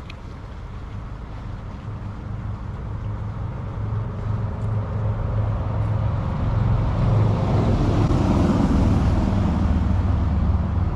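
Road traffic: a motor vehicle's engine and tyre noise growing steadily louder over several seconds, loudest near the end.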